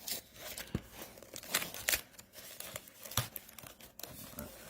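Product packaging crinkling and tearing in a run of irregular sharp crackles and snaps as a hard-to-open box is worked open.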